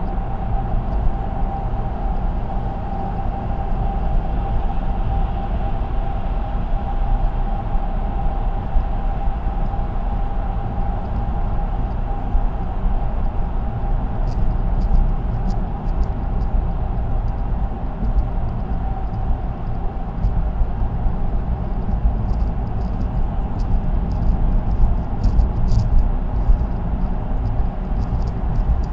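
Car cruising at expressway speed, heard from inside the cabin: steady tyre and road noise with a low rumble and a faint steady whine, and light scattered ticks in the second half.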